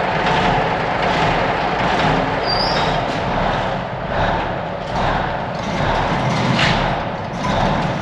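Old Ford grain truck engine idling just after a cold start, puffing white smoke. In the second half a large overhead shop door rattles as it goes up.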